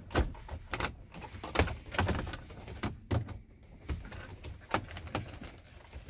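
Irregular clicks, taps and light knocks from screws and a mounting panel being handled and fitted into place by hand.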